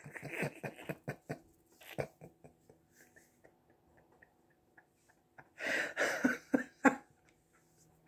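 A man laughing at his own joke: short breathy bursts of laughter in the first couple of seconds, a quieter stretch, then a louder breathy laugh in several bursts near the end.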